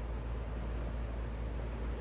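Wind on the microphone: a steady low rumble with a fainter hiss above it.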